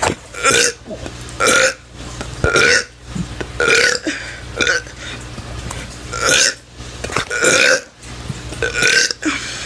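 A teenager burping over and over: a string of about eight short burps, roughly one a second.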